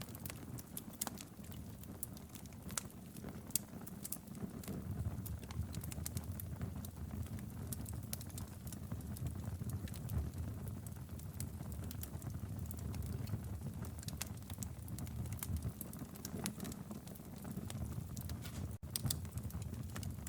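Wood fire burning in a fireplace: irregular sharp crackles and pops over a steady low rumble of flame.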